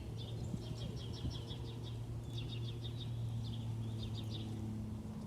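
Small songbirds singing in phrases of quick, high chirped notes, several rapid trills one after another, over a steady low hum.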